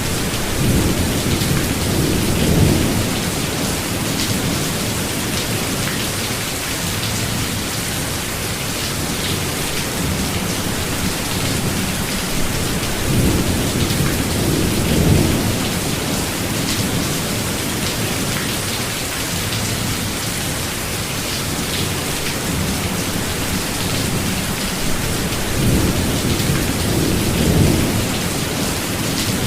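Steady rain falling, an even hiss, with low rolls of thunder rumbling three times: near the start, about halfway through, and near the end.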